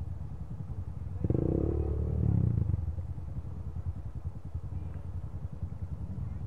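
A dirt bike engine running with a steady low rumble, revved briefly about a second in before settling back.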